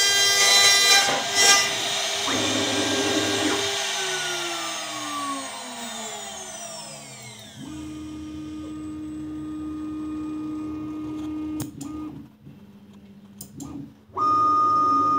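CNC router spindle at the end of a cut in acrylic sheet: the cutting noise gives way to a whine that falls steadily in pitch over several seconds as the spindle slows, then a steady low hum, a few clicks, and near the end a loud steady higher tone starts abruptly.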